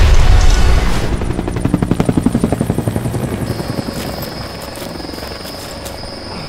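The rumble of a big explosion dying away, then a helicopter's rotor thumping in a quick, even beat. About three and a half seconds in, a steady high whine joins it as the whole sound slowly fades.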